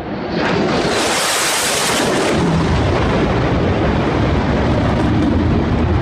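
Fighter jet flying low past: a loud jet engine roar that swells about half a second in, with a sharp high hiss around the first two seconds, then settles into a deep rumble as the jet moves away.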